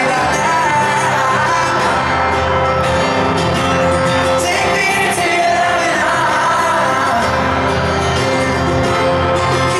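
Live concert music from a stadium: a man singing a slow pop ballad at the microphone over electric guitar and band, heard from among the audience.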